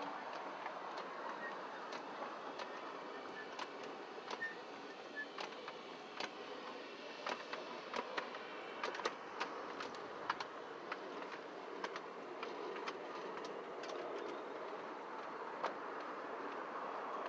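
Live-steam miniature locomotive and its ride-on train running along a model railway track: a steady running noise with scattered sharp clicks and clacks, busiest around the middle.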